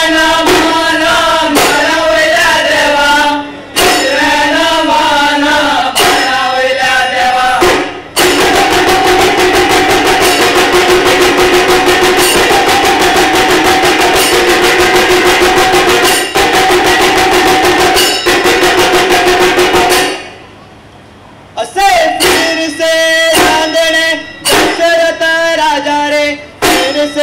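Group of men singing a traditional folk song to drum beats. In the middle a long held tone runs over fast, even drumming; about twenty seconds in it drops to a brief lull before the singing and drumming start again.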